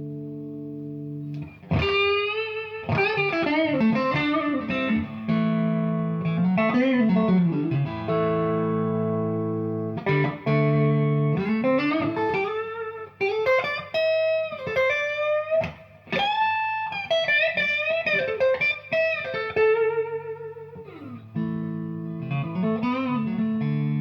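Fender Stratocaster electric guitar played through a Victory V40 valve amp head. A chord rings out at first, then melodic lead lines with string bends and vibrato on held notes, and it settles back into ringing chords near the end.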